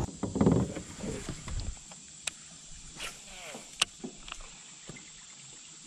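Rustling of someone moving in a plastic kayak, followed by a few sharp, separate clicks and knocks of fishing gear being handled.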